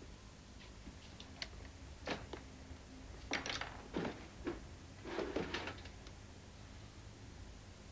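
Scattered knocks, clatters and rustling of things being moved and searched through by hand, in two busier bursts about three and five seconds in.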